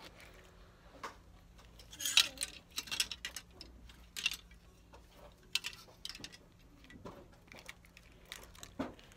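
Scattered light clicks, clinks and rustles of handling, the loudest rustle about two seconds in, over a faint steady hum.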